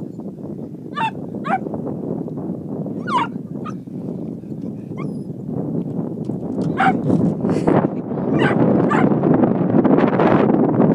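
A dog whining and yipping in short high-pitched cries, a few at first and then a run of them in the last few seconds, over a steady rushing noise that grows louder near the end.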